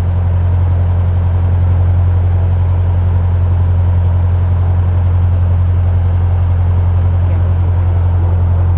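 Narrowboat diesel engine running steadily under way: an even low drone that holds the same pitch and level throughout.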